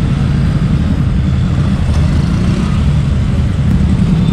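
Motorcycle engines running at low speed, a steady low rumble.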